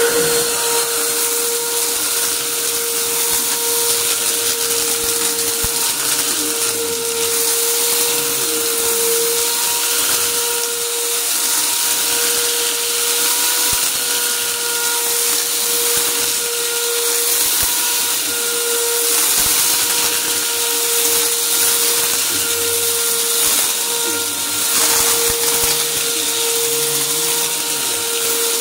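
Upright vacuum cleaner running steadily with a high motor whine, pushed over carpet, with scattered crackles as it sucks up crunchy debris.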